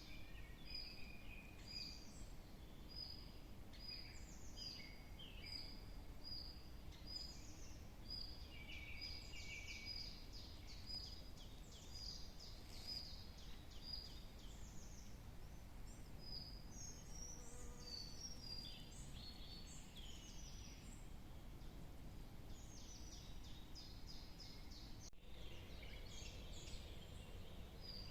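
Several wild songbirds calling and singing. One repeats a short high note about twice a second through the first half while others chirp and trill over it, above a faint steady low rumble.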